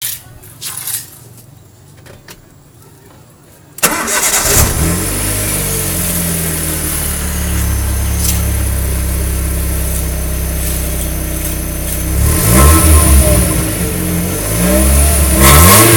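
An engine is started about four seconds in, after a few faint clicks, then runs at a steady idle and is revved up and down twice near the end.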